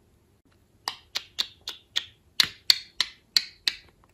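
A rapid series of about eleven sharp clicks, roughly three to four a second, starting about a second in.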